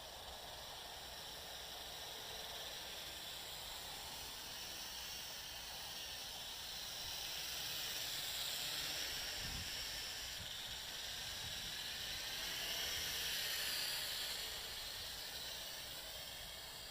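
Small JXD 509 quadcopter's propellers whining in flight, the pitch sliding up and down as the motors change speed. It grows louder about halfway through and again near the end as it comes closer.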